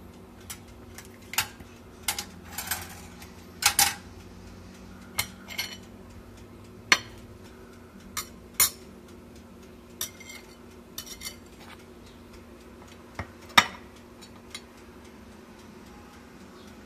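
Metal cutlery clinking and scraping against a roasted marrow bone and a ceramic plate while the marrow is scooped out: irregular sharp clinks, some ringing briefly, about one every second.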